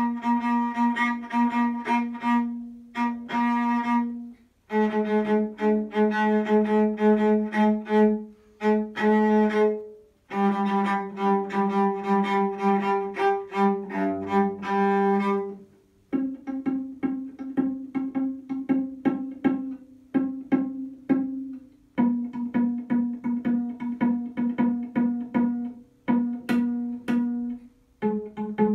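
Solo cello played with the bow: a lively tune in phrases of quick, repeated bow strokes, broken by short pauses. In the second half it turns to short, detached notes.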